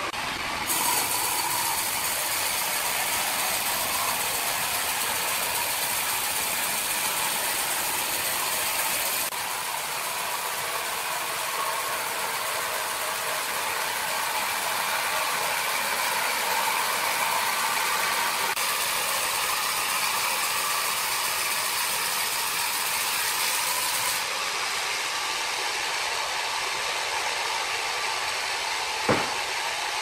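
Sawmill machinery running with a steady mechanical noise, changing abruptly in character a few times.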